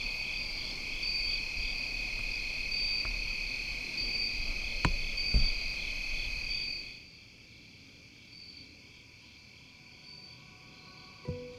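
Chorus of crickets and other insects, a steady shrill trilling with a pulsing band above it, with two sharp knocks about five seconds in. About seven seconds in the chorus drops to a faint trill, and music starts right at the end.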